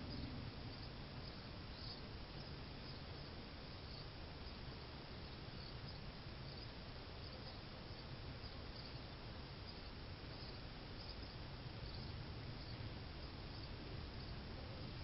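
Faint, short, high chirps repeating irregularly over a steady low hiss.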